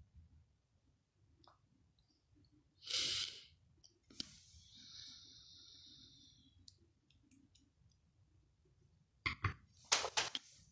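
Mostly quiet room tone with a person's soft breaths: a short breathy hiss about three seconds in and a fainter one a second later. A few small clicks follow near the end.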